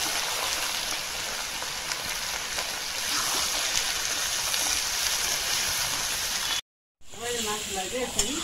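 Chunks of raw mutton, just added to hot spiced oil in a black karahi, sizzling steadily as they are stirred with a metal spoon. The sound cuts out for a moment about two-thirds of the way through, then comes back.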